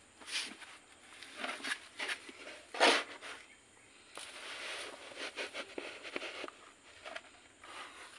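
Handfuls of loose, dry potting medium dropped into a plastic pot around a bonsai's roots: irregular rustling and pattering, loudest about three seconds in, with a longer steady rustle from about four to six and a half seconds.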